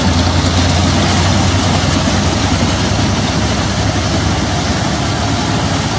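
Tractor engine running under steady load, driving a tractor-drawn straw reaper that chops wheat stubble into bhusa and blows it into a trolley: a steady low engine hum beneath a wide, even hiss from the machine.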